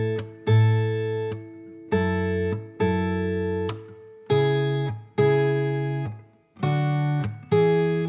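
Background music: guitar chords struck about once a second, each one ringing out and fading before the next.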